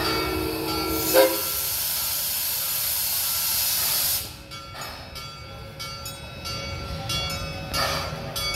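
Steam locomotive whistle sounding a chord, which stops about a second in; then a loud hiss of venting steam for about three seconds that cuts off suddenly, leaving the quieter sound of the train.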